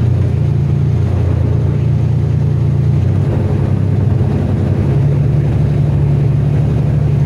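Enclosed lifeboat's inboard diesel engine running steadily under test, heard loud inside the canopy as it is put into ahead propulsion. Its low hum rises slightly about five seconds in.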